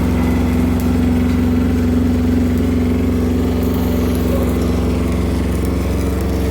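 Shindaiwa 300-amp welding generator's engine running steadily, with an even hum.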